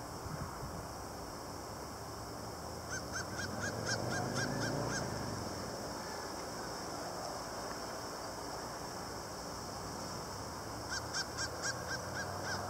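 A bird calls in two quick runs of about eight short, evenly spaced notes, about four a second, one about three seconds in and one near the end. Between them, a motorcycle engine faintly swells and rises in pitch, over a steady outdoor hiss.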